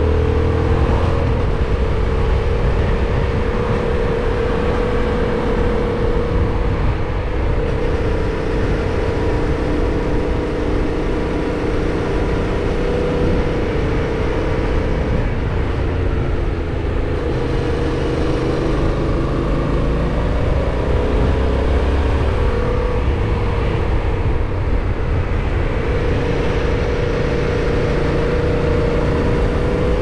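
Yamaha MT-07's parallel-twin engine running at a steady cruise on the road, its note drifting gently up and down with small throttle changes, over a low rumble.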